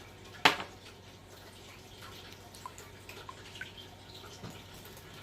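Kitchen utensil sounds while making batter: one sharp knock about half a second in, then faint scattered clinks and small drip-like ticks.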